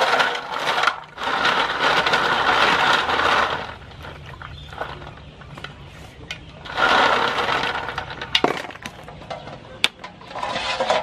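River snails being rubbed clean by hand in a metal basin of water: shells clattering against each other and the basin with water sloshing, in two long bouts and some sharp clicks between.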